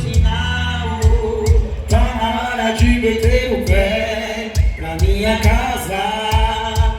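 Loud music with a man singing over a steady drum beat of about two strokes a second.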